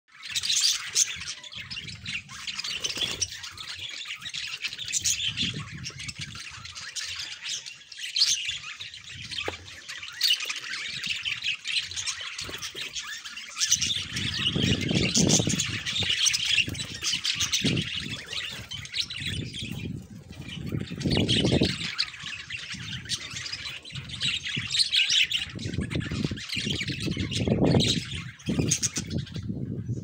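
A flock of budgerigars chattering: steady, overlapping warbles, chirps and squawks. From about halfway through, a low rumble comes and goes underneath.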